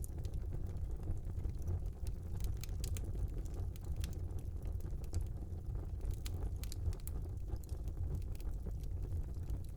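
Wood fire burning in a small fireplace: a steady low rumble of flames with scattered small crackles and pops at irregular moments.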